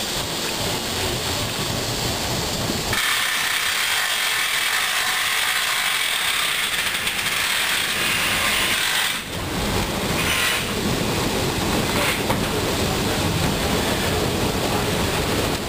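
Geared steam train in motion, heard from an open passenger car: a steady mechanical rattle of wheels and running gear. From about three seconds in, a high hiss covers it for about six seconds, then the rattle and rumble return.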